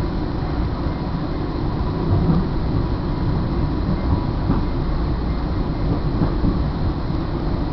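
Northstar commuter train running along the track, heard from inside a passenger coach: a steady low rumble with a few faint knocks.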